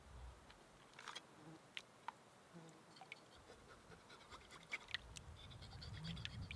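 Faint, scattered clicks and short scrapes of gear being handled, with a low rumble building in the second half.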